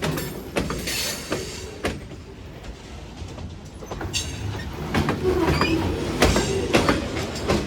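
Freight cars of a Union Pacific manifest train rolling past, the wheels clacking and banging over rail joints in an irregular string of sharp clicks over a steady low rumble.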